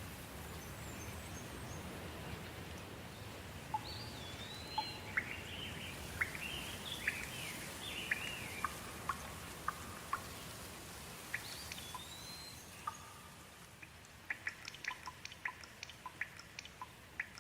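Steady hiss of gentle rain with a bird calling over it: a few whistled, slurred notes and quick chirps. The rain fades near the end, leaving a run of short, sharp ticks like drips.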